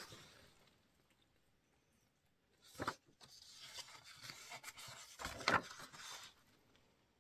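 Sheets of printed craft paper rustling and sliding against each other as they are handled and turned over, in short uneven bouts starting about three seconds in.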